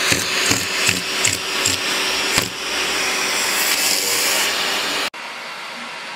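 Vacuum cleaner running, with a quick series of knocks about three a second for the first couple of seconds before it settles to a steady whir. About five seconds in it cuts suddenly to a quieter steady running noise.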